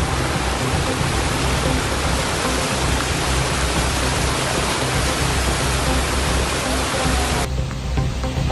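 Heavy rain falling as a dense, steady hiss, with faint background music underneath. The rain sound changes abruptly near the end.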